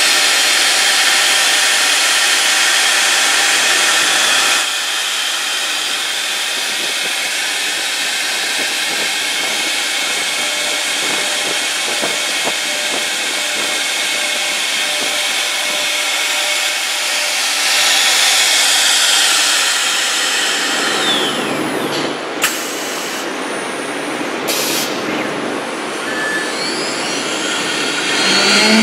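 CNC router's high-speed spindle running and cutting into a panel: a steady hiss-laden machining noise with a faint whine, changing in character about four and a half seconds in and again about two-thirds of the way through. A few sharp clicks come near the end, followed by a rising whine.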